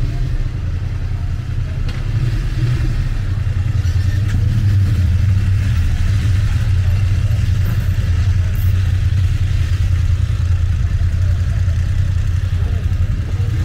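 Town street ambience, with a steady low rumble of road traffic.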